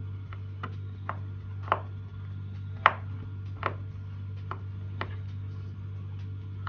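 About eight small sharp clicks and taps at irregular intervals, the loudest about three seconds in, from a small screwdriver and screws as a smartphone's housing screws are taken out. A steady low hum runs underneath.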